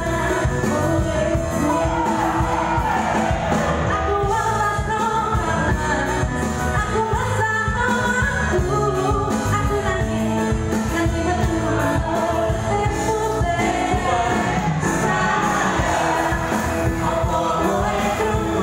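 A woman singing a pop song into a microphone, amplified through a PA and backed by a live band with keyboard, guitar and drums keeping a steady beat.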